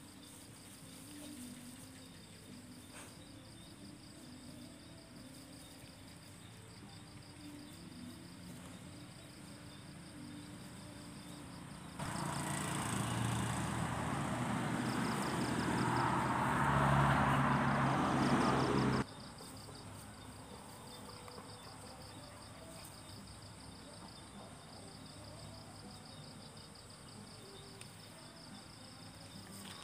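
Crickets chirping steadily in a high, pulsing trill. About twelve seconds in, a loud noise with a low hum cuts in suddenly, lasts about seven seconds, and cuts off just as suddenly.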